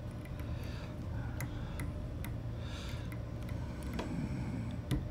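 Faint, irregular small ticks and soft hissing strokes as a fly-tying bobbin wraps thread to tie a dumbbell eye onto the hook, over a steady low hum.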